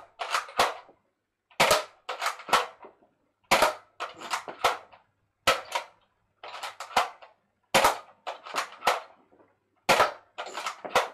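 Nerf N-Strike Elite Strongarm foam-dart blaster firing one dart at a time in normal (non-slam) fire: about six sharp pops roughly two seconds apart, each followed by a few lighter clacks, emptying its six-dart cylinder.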